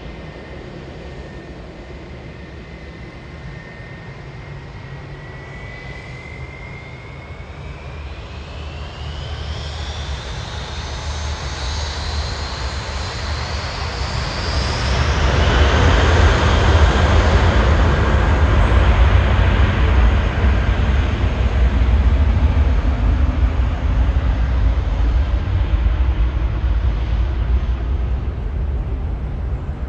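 Twin-engine Airbus A320-family airliner on its take-off run: the engine whine climbs steeply in pitch as the engines spool up to take-off thrust. The jet noise then swells to a loud, deep rumble about halfway through and slowly fades as the aircraft pulls away.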